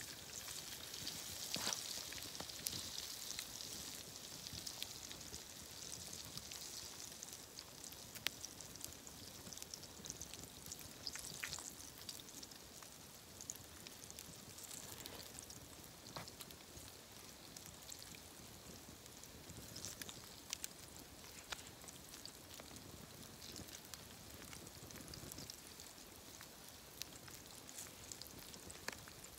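Breaded walleye fillets deep-frying in a pan of hot oil over wood coals: a steady sizzle, a little stronger in the first few seconds, with scattered sharp pops.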